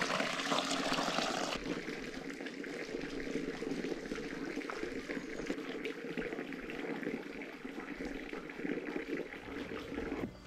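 Water pouring and trickling steadily at a trail-side water point, an even splashing hiss that turns a little duller about a second and a half in.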